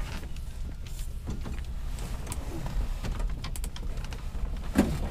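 Rustling and small knocks of a person moving about and working by hand under an aircraft's instrument panel, over a steady low hum, with one short louder sound near the end.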